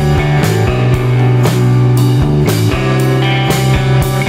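Background rock music with electric guitar and a drum kit keeping a steady beat.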